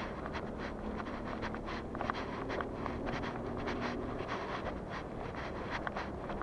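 Footsteps of someone walking outdoors, a quick irregular patter of crunching, scuffing clicks, over a steady low rumble of outdoor background noise.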